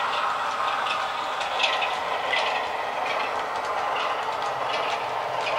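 An OO gauge model freight train, hauled by a Heljan Class 33 diesel, rolling past on track: a steady running whir, with irregular clicks as the wagons' wheels pass over rail joints and pointwork.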